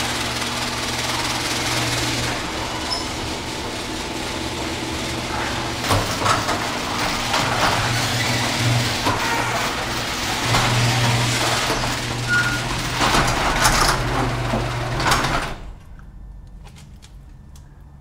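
Sectional garage door running on its electric opener: a steady motor hum with the door's rollers and hardware rattling and clanking along the tracks. It stops suddenly near the end.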